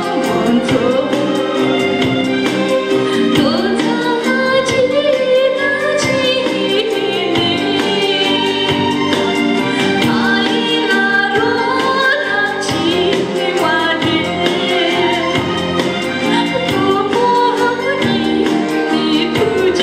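A woman singing solo through a microphone over amplified instrumental accompaniment with a steady beat.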